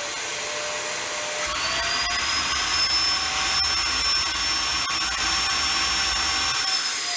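Bissell Hercules Slim Vac commercial stick vacuum motor running on high power, a steady whine over a rush of air. About a second and a half in, the pitch steps up as the inlet is sealed against a water-lift gauge. Under this dead-headed suction it pulls about 86 to 88 inches of water lift.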